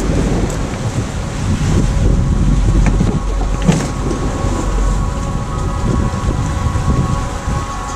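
Strong wind buffeting the microphone over the rush of rough sea against a sailing yacht's hull, a steady loud noise heavy in the low end.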